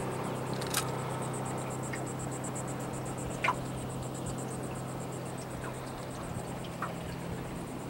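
Insects trilling from the marsh, a fast, even, high pulsing chirr, over a steady low hum. A few short high chirps break in, the loudest about three and a half seconds in.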